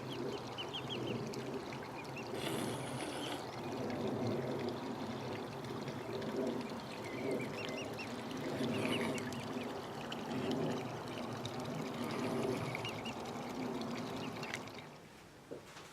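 Waterfowl chicks peeping in many short, high calls over a steady sound of moving water. It stops about a second before the end.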